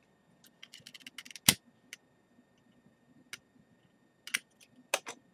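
Small clicks and ticks from handling a spliced mouse cable and its wires in the fingers. There is one sharp knock on the desk about a second and a half in, and more clusters of clicks near the end.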